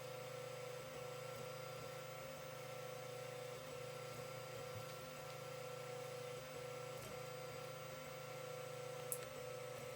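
Creality CR-10 3D printer running a print: a faint steady hum with a constant whine, from its fans and motors, and a few light ticks.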